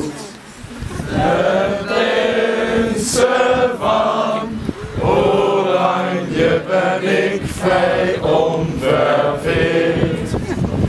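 A group of young people, boys and girls, singing together in unison, holding long notes about a second each with short breaks between.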